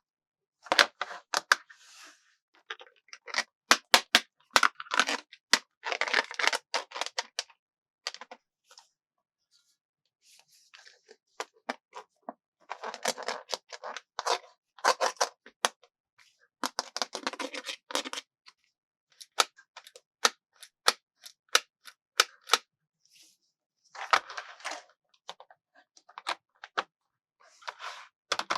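Rapid fingertip and fingernail tapping and clicking on hard plastic, in clusters of a few seconds with quiet gaps between them, mixed with short stretches of rustling.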